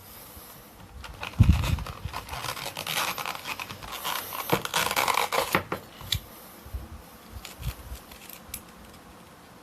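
Phone packaging being handled and opened: dense rustling, scraping and tearing with a thump about a second and a half in, then scattered light clicks and taps.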